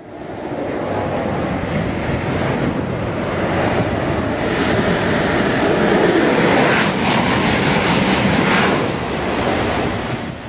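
Double-deck TGV high-speed electric train passing at speed: a steady rushing of air and wheels on rail that builds to its loudest about six to eight seconds in. A quick run of beats sounds at the loudest part, then the noise fades near the end.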